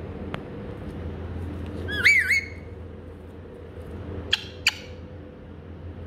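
Pet green parakeet giving one loud, wavering squawk about two seconds in, then two short, sharp calls close together a little past the four-second mark.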